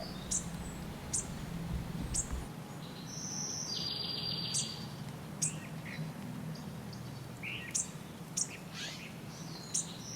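Wild songbirds calling outdoors: scattered short, high chirps, and a buzzy two-part trilled call about three seconds in that starts again near the end.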